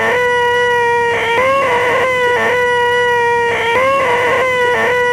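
A man's voice holding a long, flat, nasal 'eeeeeh' whine, the 'most annoying sound in the world' gag, repeated about four times with short breaks. It is spliced in where a sitcom laugh track would sit.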